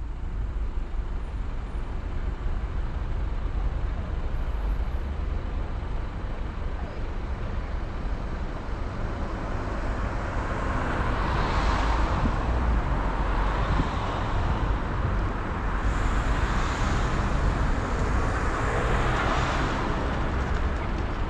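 Car driving on the road: steady tyre and wind noise over a low rumble, growing louder and brighter about halfway through, with a few swells.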